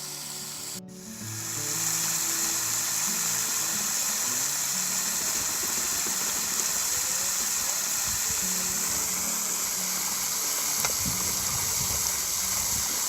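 Fresh water running steadily from a hose as ducks are given a refill, a continuous hissing rush that starts about a second and a half in. Background music plays underneath.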